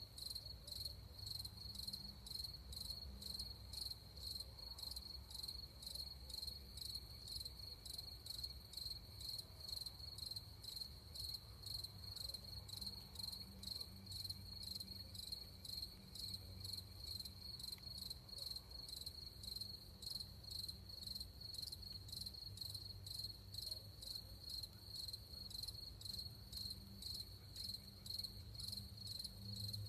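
Crickets chirping in an even, steady rhythm of about two pulses a second, over a faint low rumble.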